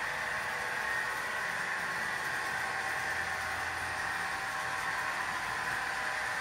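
Model railway locomotive running on the layout: a steady, even whirring hum with no breaks.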